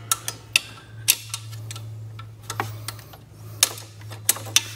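Irregular sharp metallic clicks and taps from a motor-mount bolt and tool being worked into place by hand against the engine bracket, a dozen or so spaced unevenly, over a steady low hum.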